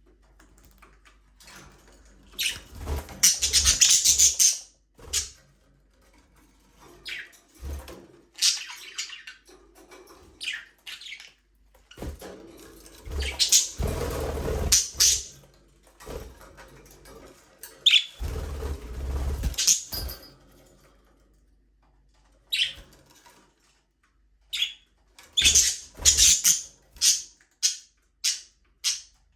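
Budgerigars chirping and chattering in irregular bursts, some dense and loud, with a run of short quick chirps near the end. Low thuds sound under some of the loudest bursts.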